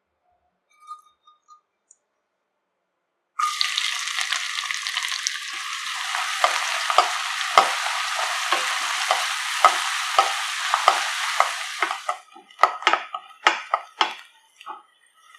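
Food hitting hot oil in a pan and sizzling, starting suddenly a few seconds in, with a spatula stirring and scraping the pan about twice a second. The sizzle stops near the end, followed by a few separate knocks of the spatula on the pan.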